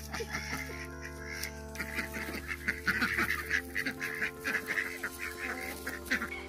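Background music with slow sustained chords. Over it, a run of rapid, busy poultry calls comes through, strongest from about a second and a half to four seconds in.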